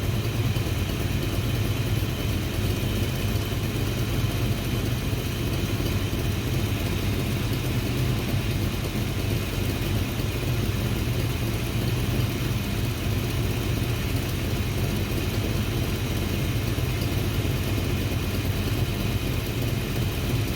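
Ford Fox-body Mustang engine idling steadily during a fuel pressure test, run with a fuel pump that the owner suspects is weak.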